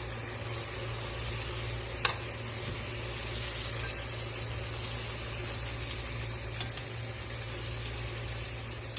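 Chicken and spice masala for biryani sizzling steadily in a pan over a low steady hum, with a sharp click of a utensil about two seconds in and a lighter one later.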